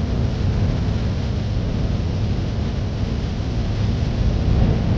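Strong wind buffeting the microphone: a steady, even rumble of noise, heaviest in the low end.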